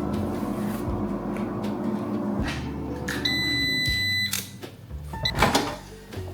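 A kitchen appliance runs with a steady hum, then gives one long beep about three seconds in and shuts off, signalling the end of its cycle. A few clicks and a sharp knock follow, the knock loudest of all.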